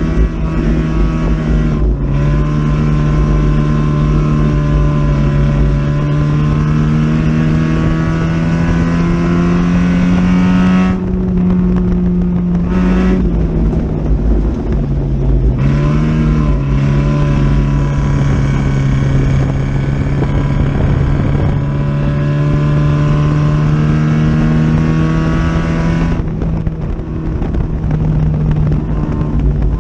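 Four-cylinder dirt-track race car's engine heard from inside the cockpit, running hard at high revs. Its pitch climbs slowly, dips briefly twice around the middle and then holds steady, over a heavy low rumble.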